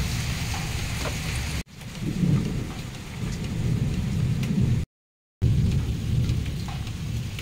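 Heavy rain pouring down, with a deep low rumble under it. The sound breaks off sharply at cuts about a second and a half in, and again with a brief silence about five seconds in.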